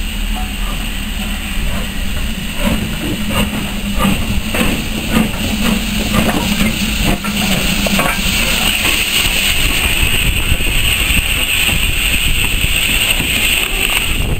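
BR Standard Class 9F steam locomotive moving slowly past, with a run of short knocks and a low steady drone over the first half, then a steady hiss swelling through the second half.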